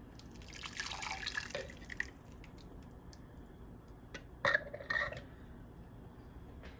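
Blended green sauce pouring from a container into a pan of sautéed carrots and bell peppers, a splashing pour lasting about a second and a half, followed a few seconds later by two short knocks, like the container tapped against the pan.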